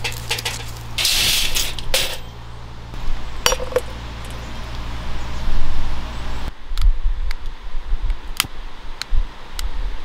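Rustling handling of a plastic power cord over a steady low hum, then, about two-thirds of the way in, a series of separate sharp light clicks and clinks as a mosquito coil is set in its holder and lit with a long lighter.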